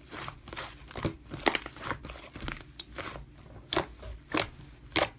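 Slime being squished and worked by hand, giving an irregular run of sticky clicks, pops and crackles, with a few louder snaps near the end. The sound cuts off suddenly at the end.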